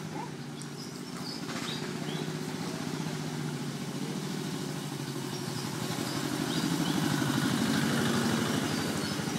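A small engine running steadily with an even throb, growing louder about six seconds in and easing off a little near the end.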